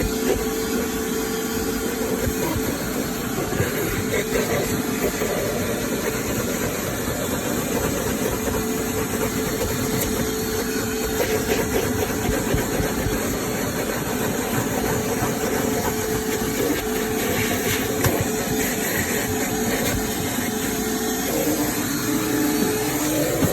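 Ridgid WD0319 cordless 3-gallon wet/dry vacuum running steadily: a rush of air with a steady motor hum. The hum drops in pitch near the end.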